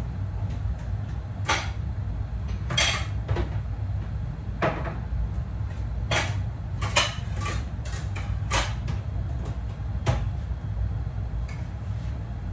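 Kitchen clatter: about a dozen separate knocks and clinks of cookware or cupboard doors, irregularly spaced, over a steady low rumble.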